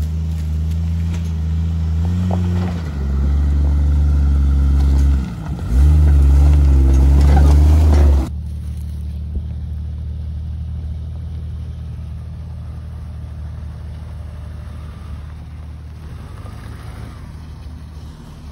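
Lifted Jeep's engine revving hard in steps under load as it climbs toward the camera, loud and close, with a brief drop about five seconds in. It cuts off suddenly, and a lifted 1998 Subaru Impreza wagon's engine follows, running steadily and more quietly as the car approaches.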